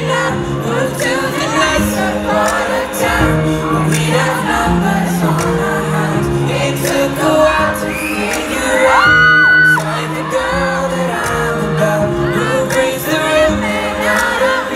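Live pop concert heard from inside the crowd on a phone: the band singing over backing music with a steady bass line, the audience singing along and shouting. About nine seconds in, a loud high voice close to the phone holds one note for under a second.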